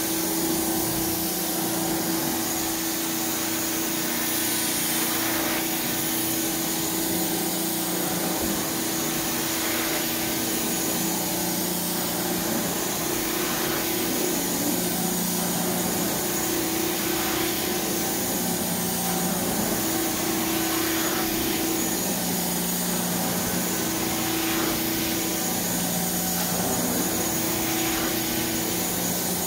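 Carpet extractor's vacuum drawing through a floor wand stroked over carpet: a steady suction rush whose hum shifts back and forth between two pitches every few seconds.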